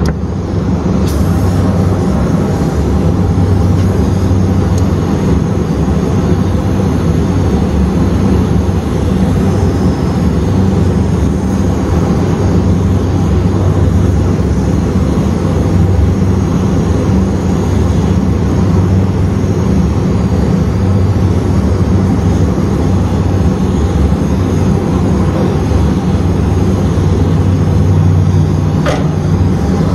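Brazing torch flame burning steadily on a copper refrigerant line, heating the solenoid valve joint to unsweat it, over a constant low hum.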